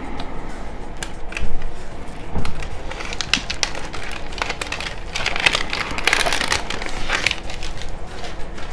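Egg-shaped toy packaging crackling and clicking as it is pried and peeled open by hand, with scattered sharp clicks and a denser run of crinkling and crackling about five to seven seconds in.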